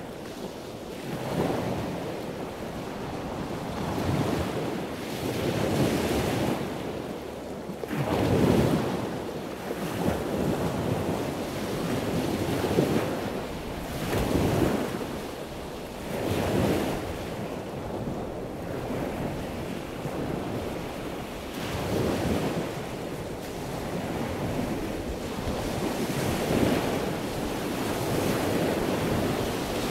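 Sea water rushing and splashing past a moving sailboat's hull and wake, with wind buffeting the microphone; the rush swells and eases every few seconds.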